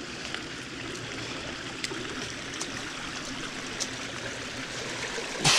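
Steady trickling, running water, with a few faint clicks and a short loud rustle near the end.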